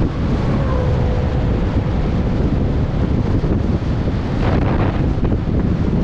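Heavy wind buffeting on the microphone of a bike-mounted camera at riding speed. In the first two seconds an oncoming car passes, heard as a faint falling tone under the wind, and about four and a half seconds in there is a brief clatter.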